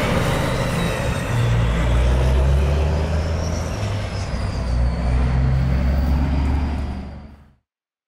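Heavy truck engine running with a deep, steady rumble, fading out near the end.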